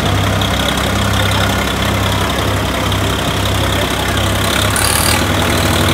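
Swaraj tractor's diesel engine running steadily at low revs.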